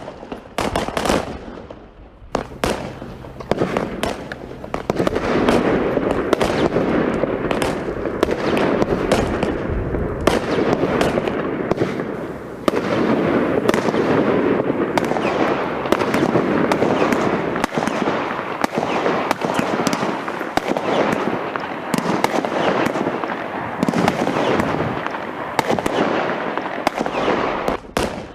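Fireworks going off: separate bangs at first, then from a few seconds in a dense, nearly continuous barrage of bangs and crackling.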